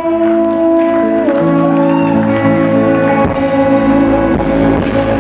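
Live rock band playing, with long held notes; the highest note steps down in pitch about a second in.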